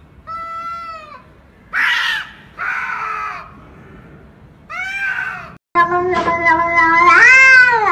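Cats yowling at each other in a series of short drawn-out calls, with two harsher, noisier screeching cries in between. After a short break, one cat gives a single long meow that rises and then falls near the end.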